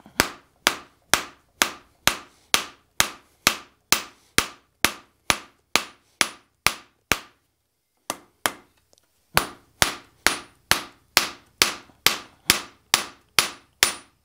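Hand hammer striking hot half-inch round steel bar on an anvil in a steady rhythm of about two blows a second, each blow ringing briefly. The blows stop for about two seconds midway, then resume at the same pace.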